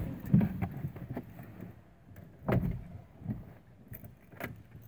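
A few dull knocks and rustles inside a car cabin, from someone moving in the driver's seat and handling things before turning the key. The loudest knocks come about half a second in and about two and a half seconds in. No engine is running yet.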